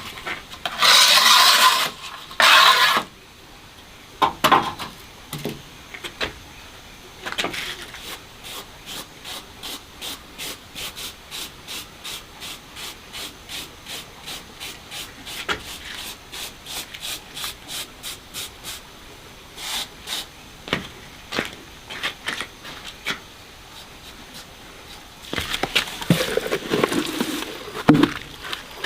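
Rhythmic scraping strokes of a hand tool, about two and a half a second, after two louder hissing bursts near the start.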